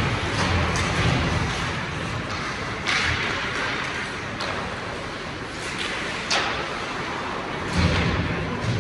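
Ice hockey play on the rink: skates scraping across the ice under a steady hiss, broken by several sharp clacks and thuds of sticks, puck and boards.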